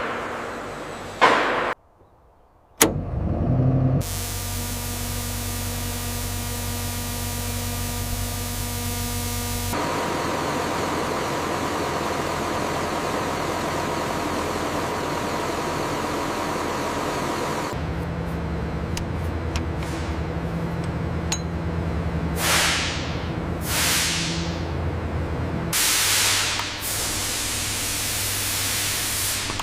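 Factory machinery running with a steady hum and fixed tones that change character twice. There are a couple of sharp knocks at the start and several hissing whooshes, like air or spray bursts, in the last third.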